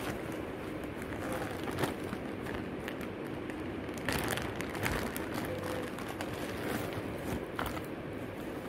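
Plastic bubble wrap and a zip-lock bag rustling and crinkling as jewellery is unwrapped by hand, with scattered crackles that are densest about four seconds in, over a steady background hiss.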